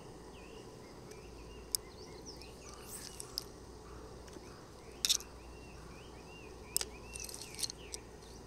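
Quiet open-air ambience with faint, repeated little chirping calls from small birds or insects. A few sharp clicks and brief rustles come from handling a spinning rod and reel.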